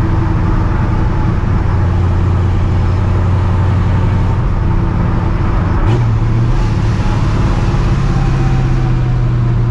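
Straight-piped, cammed, Procharger-supercharged 5.4-litre two-valve V8 in a 1999 Ford Mustang GT running at a steady cruise with a loud, even exhaust drone. About six seconds in there is a brief click, and the engine note steps up slightly and holds there.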